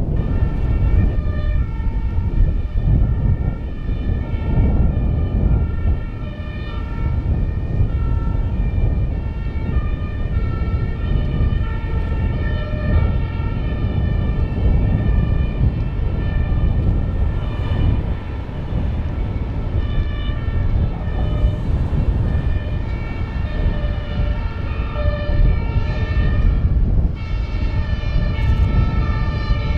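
Several two-tone emergency-vehicle sirens sounding at once, their alternating notes overlapping out of step, over a heavy low rumble.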